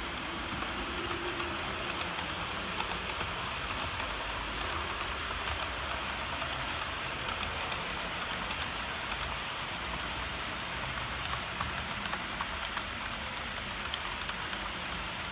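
Model trains running on an OO gauge layout: a steady rolling rattle of small wheels on the track, with a low hum and many faint scattered clicks.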